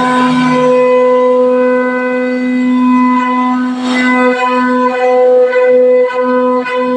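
CNC door-carving router running with a steady, strongly pitched whine. Its level dips briefly a few times in the second half, as its load changes.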